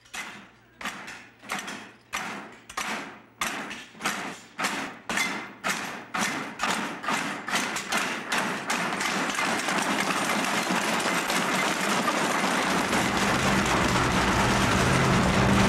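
A series of heavy thuds, slow at first, speeding up and growing louder until they run together into one continuous din. A low, pulsing hum joins near the end.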